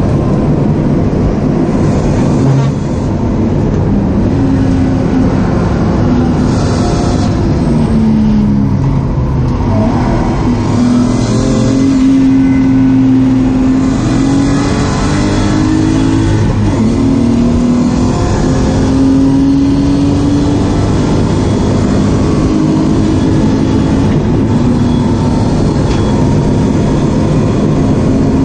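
BMW E36 328i's straight-six engine heard from inside the cabin under hard track driving, its pitch climbing under acceleration and dropping repeatedly at gearshifts and lifts for corners, over steady road and tyre noise.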